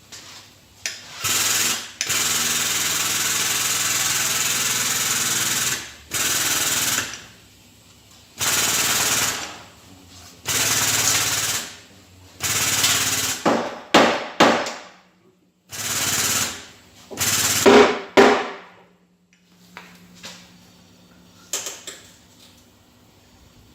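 A power tool running in a series of loud bursts, each about half a second to four seconds long, with short pauses between them; a few bursts near the middle trail off as the tool winds down.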